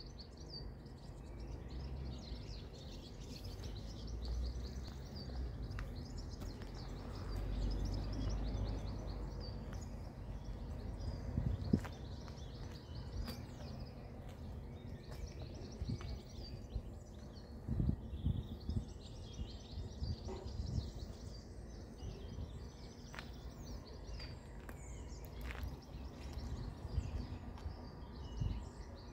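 Outdoor ambience: small birds chirping and twittering throughout over a steady low rumble, with a few short thumps, the loudest about twelve seconds in and around eighteen seconds.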